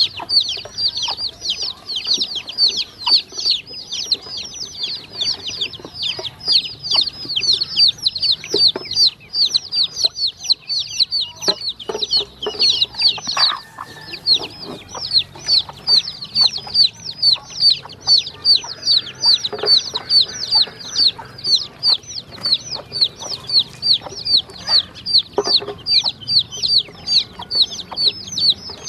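Baby chicks and ducklings peeping continuously: rapid high-pitched peeps, several a second, each sliding down in pitch. A few soft knocks are scattered through it.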